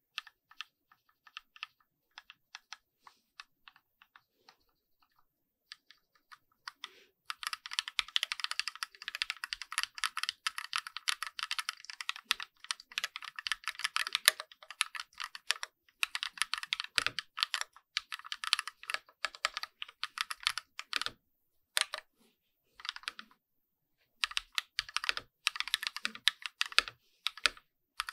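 Keychron Q1 mechanical keyboard being typed on, its switches and stabilizers lubed with Super Lube: single light keystrokes for the first several seconds, then fast continuous typing, a short pause with only a few strokes, and another burst of fast typing near the end.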